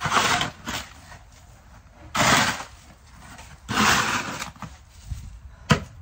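Snow shovel blade scraping snow off a paved path: three scraping strokes, then a sharp knock of the blade on the pavement near the end.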